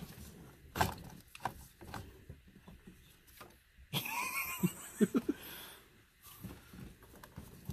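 Plastic steering-column parts and wiring connectors being handled and fitted: scattered light clicks and knocks, with a hissy rustle and a few short squeaks about four to five seconds in.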